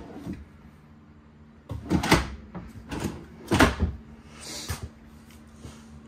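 Soft-close kitchen cabinet drawers being pulled open and pushed shut: one drawer slides and closes about two seconds in, another about three and a half seconds in, then a fainter slide.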